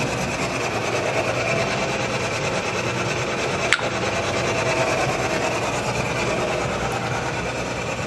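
Metal lathe running steadily, turning a wooden drum part, with one sharp click a little under four seconds in.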